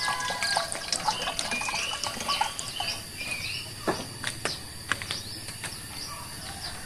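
Small birds chirping and twittering in quick short calls, over a steady thin high insect drone, with a few sharp clicks about four to five seconds in.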